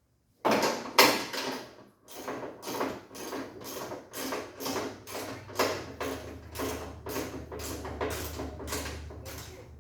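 Hand ratchet wrench worked back and forth in quick strokes, about two a second, tightening a bolt on a Jeep's front shock absorber.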